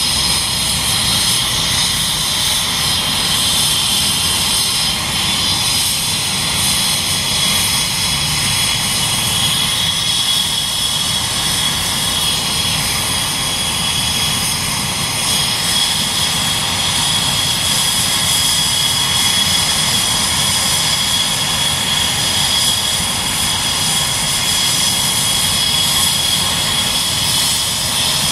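Airbus EC135 T3 helicopter's twin turboshaft engines and rotor running steadily while it sits on the ground, a high turbine whine over an even rush.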